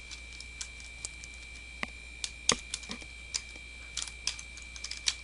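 Computer keyboard being typed on: scattered, irregular key clicks, a few at a time with short pauses between.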